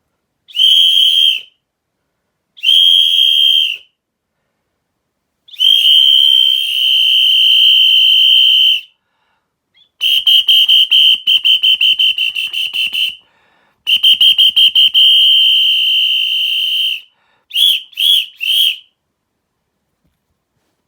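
A whistle blown in loud, high, steady blasts: two short toots, a long blast, a trilling blast that flutters rapidly, another long blast, then three quick toots near the end.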